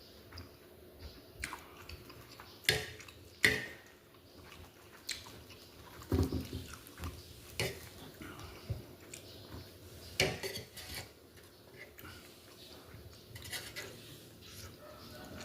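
Cutlery clinking against dishes during a meal: scattered sharp knocks, the loudest a few seconds in and again around ten seconds in, with quieter handling noises between.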